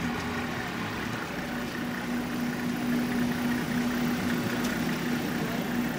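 Minibus engine idling close by, a steady, even hum.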